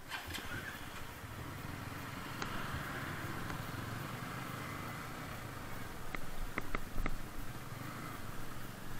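Sport motorcycle's engine running at low revs as the bike rolls slowly, with a few sharp clicks about six to seven seconds in.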